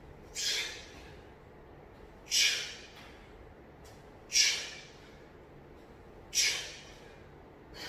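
A man breathing out hard four times, about two seconds apart, in time with knee-to-elbow reps of a side plank: effort breaths under exertion.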